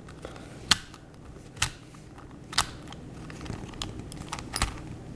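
A tiny plastic Rubik's cube being turned by hand: a series of sharp plastic clicks and clacks, the loudest about once a second, from a cube that turns stiffly and poorly.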